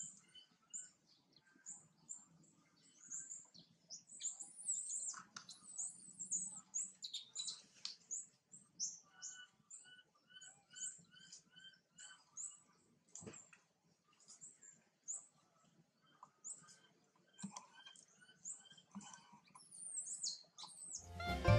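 Small birds chirping and calling in many short, high notes, some in quick repeated runs. Music starts near the end.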